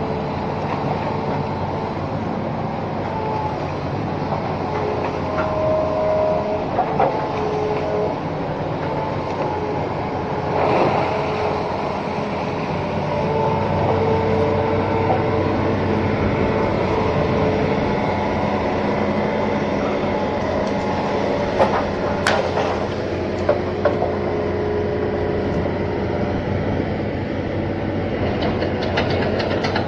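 Diesel engine of an amphibious Hitachi Zaxis 210 excavator running steadily, with a few sharp knocks about two-thirds of the way through.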